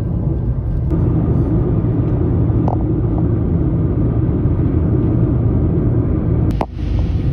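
Steady low rumble of a car on the move, road and engine noise, broken by a sharp click and a brief drop in level about six and a half seconds in.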